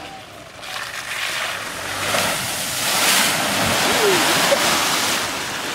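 Deep muddy creek water surging and splashing as a four-wheel-drive wagon ploughs into it, a rushing wash that builds over the first couple of seconds and is loudest around the middle.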